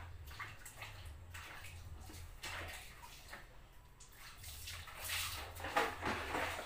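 Water splashing and sloshing in a plastic basin, in irregular bursts that grow louder and busier near the end.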